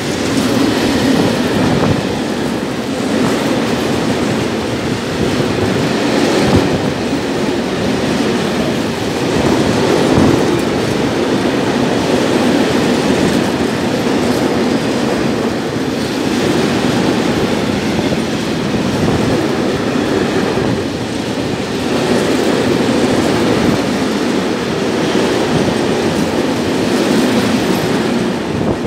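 Freight train of tank wagons passing close by: a steady loud rumble of wagons rolling on the rails, with the clickety-clack of wheels clattering over rail joints.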